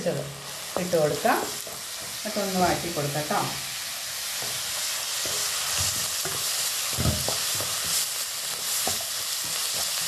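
Chopped onions, curry leaves and ginger-garlic paste sizzling in hot oil in a pan, stirred with a wooden spatula that scrapes and knocks against the pan. The sizzle is a steady hiss, and the spatula strokes come in short scrapes.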